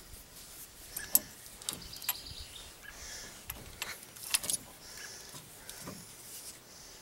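Scattered light metallic clicks and ticks from a truck's steering tie rod end being turned by hand on its threads, with the sharpest ticks about a second in and again around four and a half seconds.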